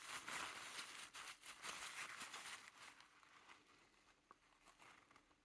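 Faint handling noise: paper rustling with light clicks, fading out after about three seconds.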